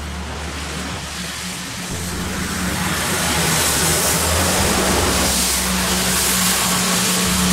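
Street sweeper running, a loud rushing, hissing noise that swells about two seconds in and then holds, over a steady low hum.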